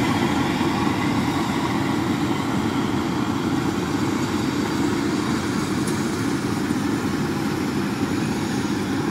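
Rice combine harvesters (WD105 Pro and 115 Pro) running steadily while cutting and threshing rice: a dense, even engine-and-machinery drone with no change in pace.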